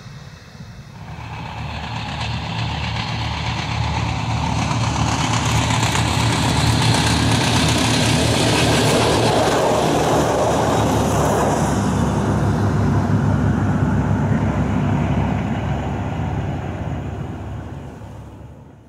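A diesel regional railcar approaches, passes close by and moves away. Its engine runs with a deep, fast pulse, loudest in the middle and fading over the last few seconds.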